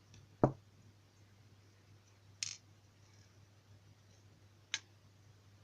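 Small lock parts being handled during disassembly of a pin-tumbler rim cylinder: a sharp knock about half a second in, then two lighter clicks, one near the middle and one near the end.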